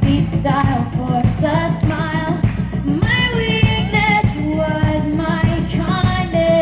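Live pop song performance: a female lead vocal sings a melodic line over a band with a steady, pulsing low beat.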